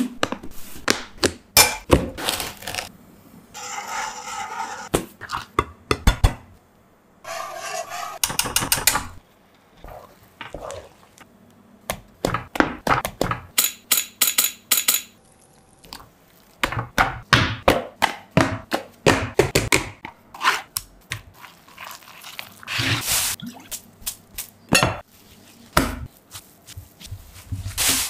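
Kitchen handling sounds: a long run of sharp knocks and taps from containers and cookware, with a wooden spatula stirring a thick cheese dough in a wok and a few longer stretches of pouring or scraping.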